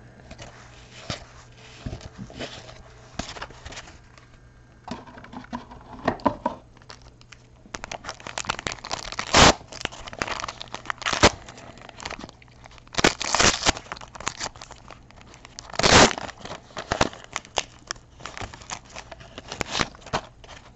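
Handling of a 1991 Donruss baseball card pack: soft rustling of cards at first, then, from about halfway through, the pack's wrapper being torn open and crinkled in a run of sharp crackling bursts.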